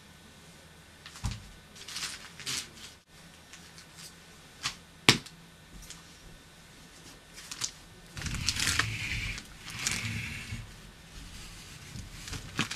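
Scattered sharp clicks and knocks, the sharpest about five seconds in, then a few seconds of louder rustling and bumping from about eight seconds in.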